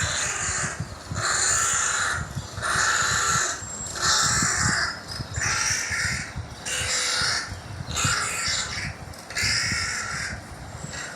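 A bird giving harsh, noisy calls over and over, about eight in a row, each under a second long and roughly a second apart.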